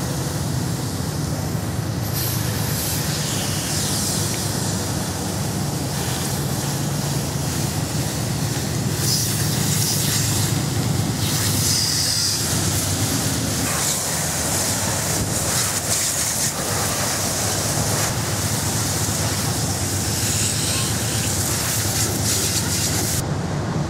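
Water hissing from a hose wand as it rinses a foam-covered car, the spray coming and going in stretches, over a steady low machine hum.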